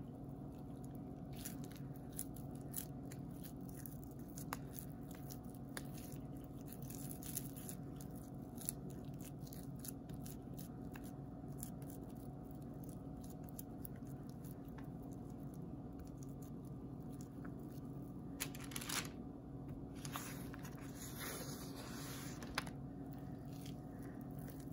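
Grated soap scraps being squeezed and pressed between the hands into a ball, giving many faint short crackles and crunches, thickest near the end. A steady low hum lies under them.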